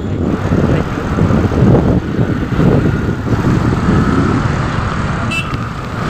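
Steady road and engine rumble heard from inside a moving car in city traffic, with a brief high-pitched chirp about five seconds in.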